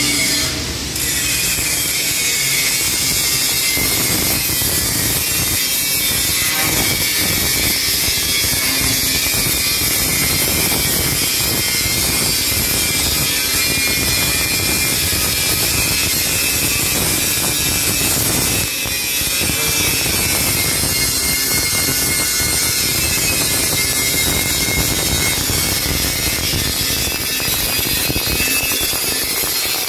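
Stick (arc) welding: the steady crackling hiss of the welding arc running on, broken briefly near the start and again about two-thirds through.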